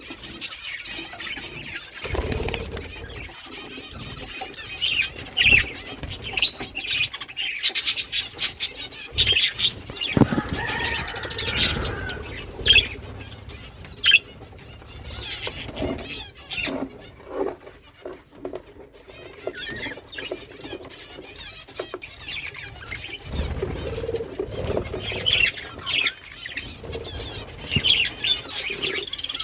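Small pet birds chirping and twittering in short high calls, with wings flapping now and then.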